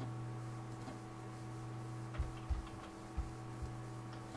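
Steady electrical hum of the recording setup, with four or five soft computer-mouse clicks from about halfway through.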